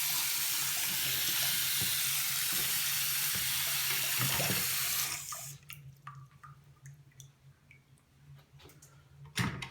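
Faucet running full on while being checked for leaks, shut off abruptly about five seconds in. A few faint ticks follow, then a single knock near the end.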